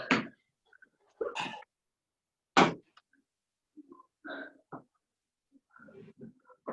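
A few short, sharp thuds and hard breaths from people doing burpees, the loudest about two and a half seconds in, then quieter scattered sounds of movement and breathing.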